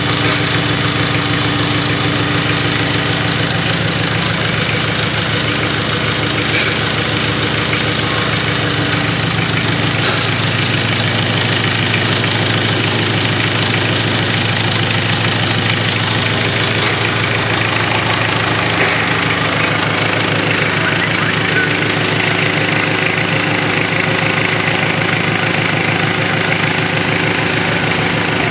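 Freshly overhauled Mitsubishi 4M40 2.8-litre four-cylinder diesel running steadily on test, with an even pulse; its note shifts slightly about two-thirds of the way through.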